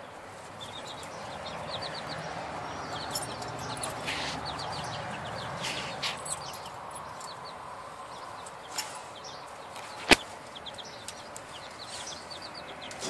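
Young chickens peeping in short runs of quick, high chirps. One sharp click about ten seconds in.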